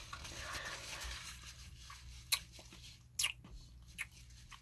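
Close-miked chewing with a few sharp, wet mouth clicks and smacks, the loudest about two seconds in. A soft rustle of a paper napkin wiped across the face at the start.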